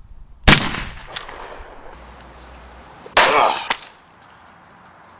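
A single rifle shot from a Mossberg bolt-action .30-06 about half a second in, with a decaying echo. A smaller click follows, then a second, longer loud burst of noise around three seconds in.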